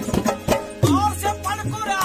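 Qawwali music: hand-drum strikes with a deep drum tone, and about a second in a melody with a quick wavering pitch.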